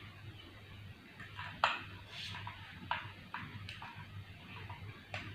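Small sharp clicks and taps, about five scattered across the few seconds, from hand work on a bulb holder as a wire is fitted into its terminal, over a low steady hum.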